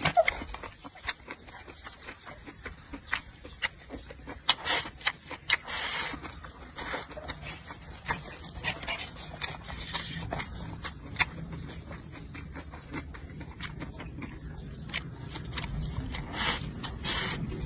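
Close-up eating sounds: wet chewing and lip-smacking of braised pork and rice noodles, with many short sharp clicks, and a slurp of noodles near the end.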